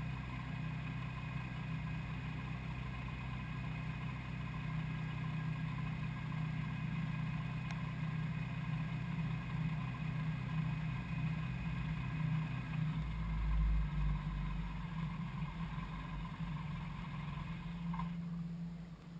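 Ultralight aircraft's engine and propeller running steadily on the ground, with a deeper rumble joining about two-thirds of the way through. Near the end the engine shuts down and the sound drops away.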